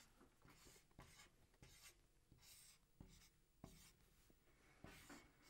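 Faint dry-erase marker on a whiteboard: a string of short scratchy strokes and light taps as a graph is drawn.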